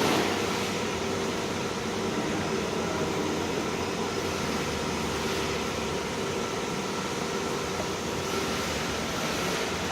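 A machine running steadily: an even whirring noise with a faint constant hum and no change in speed.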